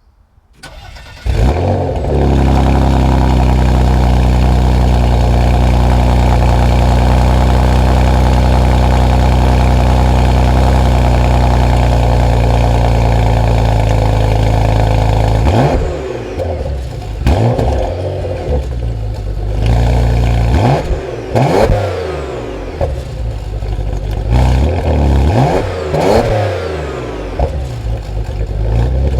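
Porsche Macan Turbo's 3.6-litre V6 starting up: it catches about a second in and settles into a loud, steady idle. From about halfway through, it is blipped up and down with a run of short throttle revs.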